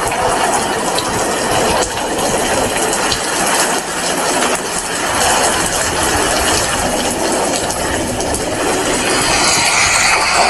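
Heavy rain falling steadily: a dense, even hiss with many small drop hits through it.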